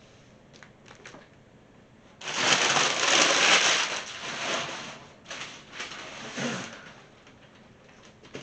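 Packing paper crinkling and rustling loudly for about two seconds, starting about two seconds in, then in smaller, scattered bursts.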